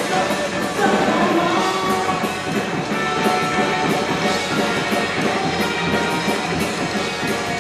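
Live psychobilly band playing loud: upright bass, electric guitar and drum kit, with a steady drum beat.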